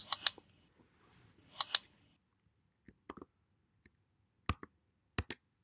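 Computer mouse clicking: a few sharp clicks, mostly in quick pairs, the loudest pair about one and a half seconds in.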